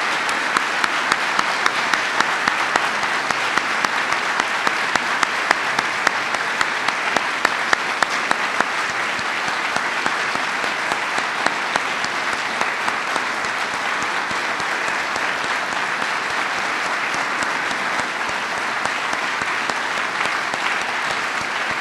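Large audience applauding steadily in a hall. For the first nine seconds or so, louder single claps stand out above the rest at about three a second.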